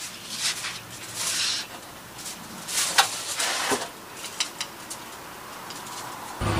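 Aluminium foil crinkling, with metal tongs clicking as they are set down on the foil, while a grilled steak on the foil sheet is handled and spooned with butter. Several short rustling bursts and a couple of clicks come in the first three to four seconds, then it goes quieter.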